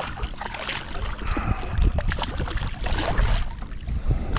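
A small striped bass splashing irregularly at the water's surface right beside a kayak as it is brought in on the line, over a low rumble of wind on the microphone.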